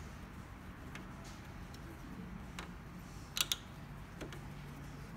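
Scattered light clicks and taps of hand tools and small parts during printer reassembly, the loudest a close double click about three and a half seconds in, over a faint low hum.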